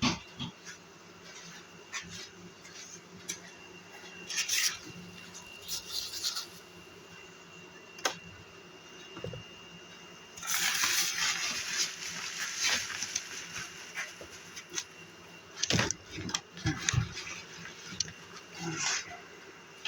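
Honey bees buzzing around opened hives, with sharp knocks and clunks of handling and a rushing hiss for a couple of seconds near the middle.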